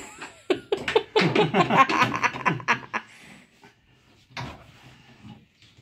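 Wordless, laughter-like vocal sounds from a person, with a few sharp clicks near the start. It then goes quiet apart from one short noisy burst about four seconds in.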